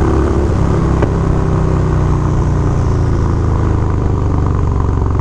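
Harley-Davidson Dyna Low Rider's air-cooled Twin Cam V-twin running as the bike rides along, holding a steady engine note. The engine is fitted with a Dynojet Power Commander fuel tuner, and the rider hears a deeper, throatier, gargling exhaust sound from it.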